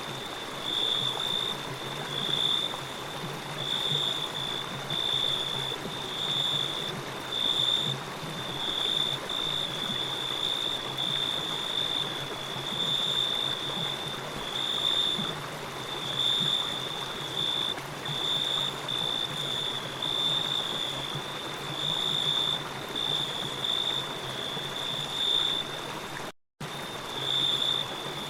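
Nature ambience: a steady rushing of water like a stream, under a high, shrill chirp that repeats roughly once a second, the loudest sound in the mix. The whole track cuts to silence for a split second near the end.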